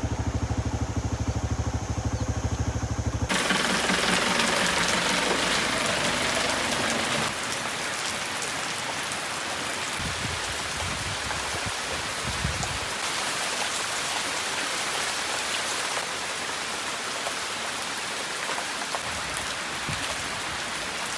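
A vehicle engine idling for the first three seconds or so, then, after an abrupt change, steady rain falling, easing slightly about seven seconds in.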